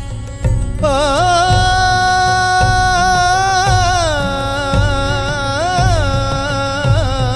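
Interlude of a Tamil devotional song: a single melody line glides and bends ornamentally between held notes over a steady drum beat, with no sung words.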